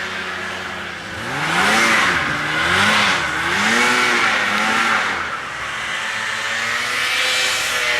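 1980 Ski-Doo Everest 500 snowmobile's two-cylinder two-stroke engine, running freshly rebuilt after 26 years in storage. It revs up and down several times in quick swings, then settles into a steadier run with a slight rise near the end.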